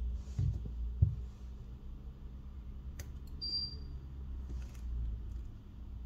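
Light handling noises of small-scale repair work: a soft thump about a second in and a sharp click about three seconds in. A short high-pitched chirp follows just after the click.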